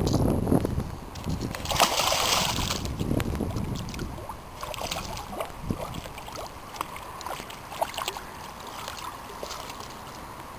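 A pike splashing at the water's surface close to the bank, loudest about two seconds in. Quieter water sounds and scattered light clicks follow.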